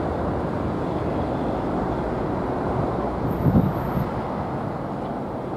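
Outdoor street ambience: a steady wash of distant traffic noise and wind on the microphone, with a brief low buffet about three and a half seconds in.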